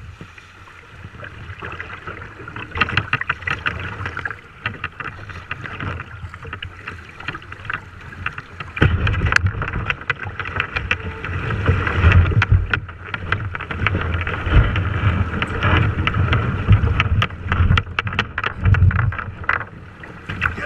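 Whitewater rapids rushing and splashing around a plastic kayak, heard from a bow-mounted action camera, with frequent sharp splashes against the hull. About nine seconds in, as the boat drops into the rough water, the rush gets much louder, with a heavy low rumble on the microphone.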